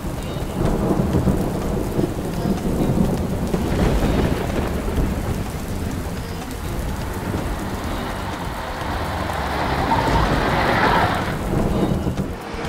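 Heavy rain falling with rumbling thunder. The thunder swells about a second in and again, loudest, around ten seconds in.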